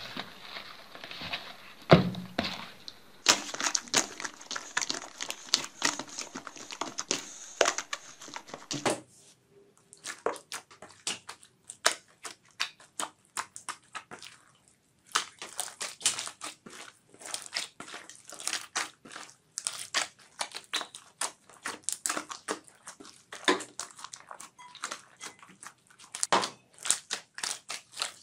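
Slime being squeezed and kneaded by hand: quick, dense crackling and popping, with a thump about two seconds in and a couple of brief pauses. Later the slime is packed with small beads that crunch as fingers press into it.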